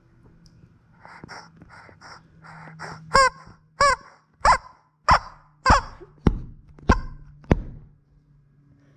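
Squeeze-toy rubber chickens being squeezed. A few soft wheezy squeaks come first, then from about three seconds in about eight loud squawks, each one rising and falling in pitch, roughly two a second.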